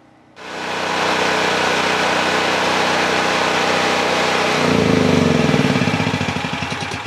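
Generac GP5500 portable generator's single-cylinder engine running steadily, then shut off about four and a half seconds in: it drops in pitch and chugs down with slowing, fading pulses as it coasts to a stop.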